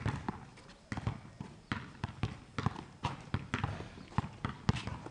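Basketball dribbled hard on an outdoor court: a run of quick, uneven bounces, about three to four a second.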